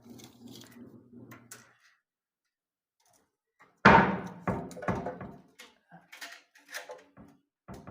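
A sudden loud knock about four seconds in, followed by a string of smaller knocks and clicks from tools and fittings being handled against a wooden door.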